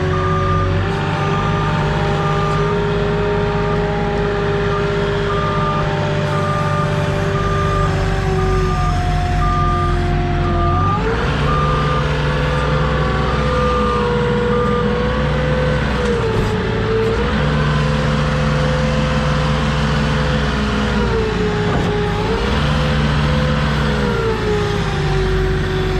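Moffett truck-mounted forklift's engine running, with its reverse alarm beeping at a steady rate for about the first fifteen seconds. About eleven seconds in the engine speeds up, then its pitch dips and recovers a few times and falls near the end.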